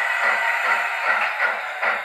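DCC sound decoder in a Bachmann 7F 2-8-0 steam locomotive model playing steam exhaust chuffs through its onboard speakers, a steady beat of about four chuffs a second as the model runs slowly.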